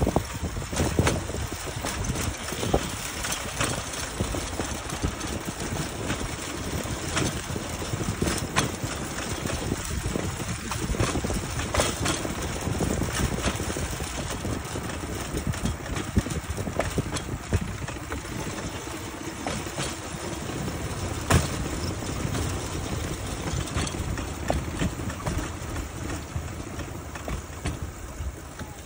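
Rail bike rolling on steel rails: a steady rumbling clatter of the wheels on the track, broken by frequent sharp clacks.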